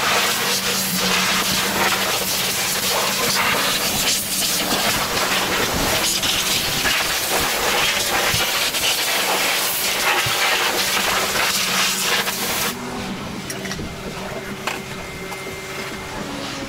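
High-pressure wash lance spraying water onto a dirt bike: a loud, steady hiss that cuts off about 13 seconds in, leaving a lower steady hum.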